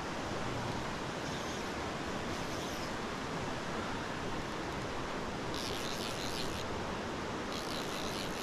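Mountain stream rushing steadily over rocks, with two short high buzzing bursts of a fly reel's clicker a little before and near the end as the line is wound in on a hooked brown trout.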